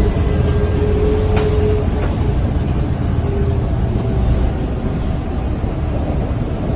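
Cabin sound of a Scania K230UB Euro V city bus on the move: the steady low rumble of its five-cylinder diesel and the road. A held higher tone rides over it for about the first two seconds and comes back briefly around three seconds in.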